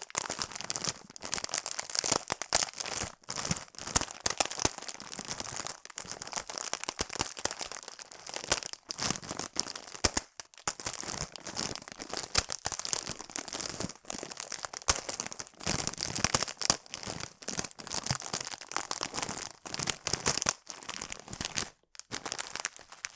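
A bag of noodles being handled, crinkling and crackling in a dense, irregular run of rustles with brief pauses.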